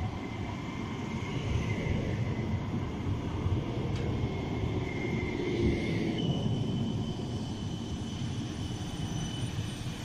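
Tram running on street track: a steady rumble with a faint thin whine that jumps higher in pitch about six seconds in, and a light click about four seconds in.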